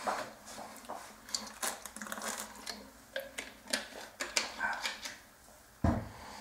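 Close rustling and clicking from a person moving right by the microphone, with a dull thump near the end.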